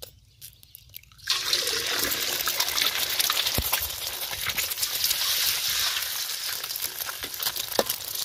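A few faint clicks as an egg is cracked over a wok, then the egg drops into hot shrimp oil about a second in and sizzles loudly and steadily, spluttering as it fries.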